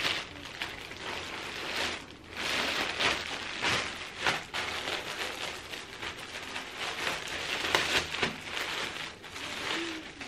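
Plastic courier bag crinkling and rustling as it is torn open and a plastic-wrapped sweater is pulled out and unwrapped: a dense run of crackles with a short pause about two seconds in.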